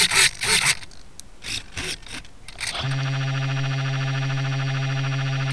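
Quick back-and-forth strokes of a hand saw cutting into a tree's wood, stopping under a second in. About three seconds in, a loud, steady droning tone starts and slides down in pitch as it cuts off near the end.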